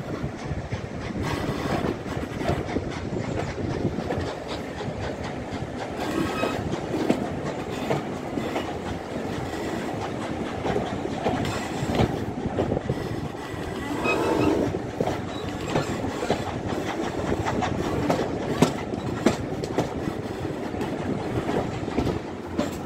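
Steam-hauled heritage railway carriages running along the line, heard through an open carriage window: a steady rumble with the wheels clattering over the rail joints.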